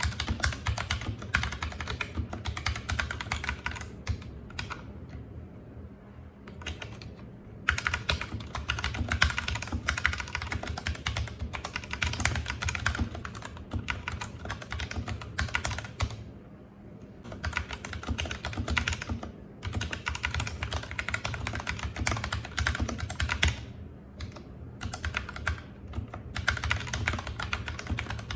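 Typing on an RK G68 mechanical keyboard with red linear switches: fast, dense key clatter in long runs, broken by a few brief pauses.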